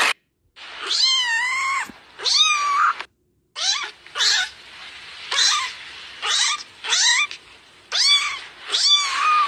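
Very young kitten mewing repeatedly: about nine high-pitched cries in quick succession, each under a second long, with short pauses between them.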